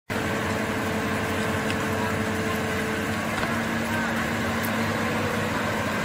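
Excavator's diesel engine running steadily, a constant hum whose pitch drops about halfway through.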